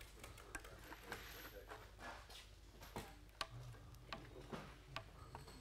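Faint, irregular clicks of a large flathead screwdriver blade catching and turning in the slot of a stainless-steel one-way security screw as it is driven into wood.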